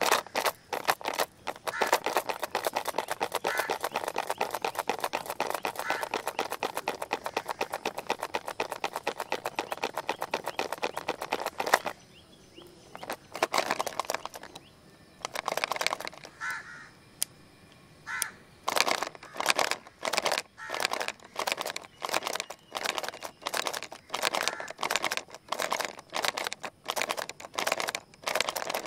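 Plastic pencil box rattling as it is shaken by hand, its contents clattering inside. First a fast, continuous shaking for about twelve seconds; after a short pause, shorter shakes come in a steady rhythm of about two a second.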